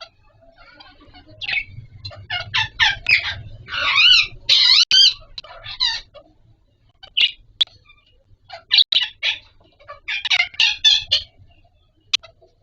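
Indian ringneck parakeets giving rapid, harsh squawking calls in two loud bouts, with a few single calls between.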